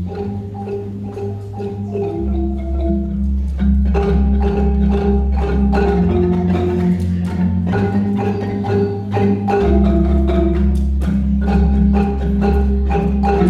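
A marimba band playing: many quick mallet strikes on several marimbas in a steady rhythm, over deep bass-marimba notes that change about two seconds in and again near ten seconds.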